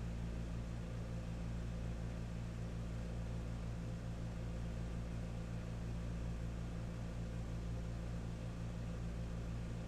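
Steady low hum with a faint even hiss, unchanging throughout, with no other events.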